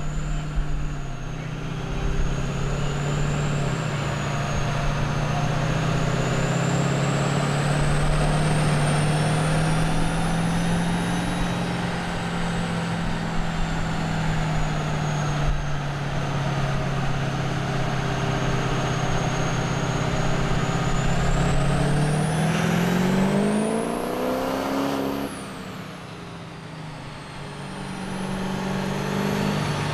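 Chevrolet Duramax 6.6 L diesel in a Silverado 2500HD with an aftermarket exhaust, running on a chassis dyno: a steady drone with a high whistle above it, then, about twenty-two seconds in, a rising rev as the pull climbs. It cuts off suddenly a few seconds later, goes quieter, and settles back to a steady run near the end.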